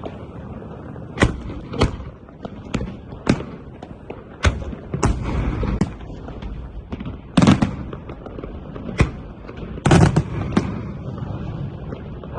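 Aerial fireworks shells bursting in a professional display: a series of about a dozen sharp bangs at irregular intervals over a steady rumble, the loudest coming in close pairs about two-thirds of the way through and near the end.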